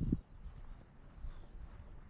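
Walking footsteps on a trail, the last step landing just at the start as a dull thump, followed by faint outdoor background with a low rumble.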